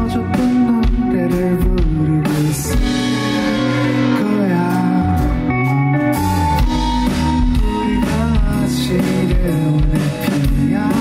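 Live band playing a song: electric guitar and drum kit, with a man singing lead vocals.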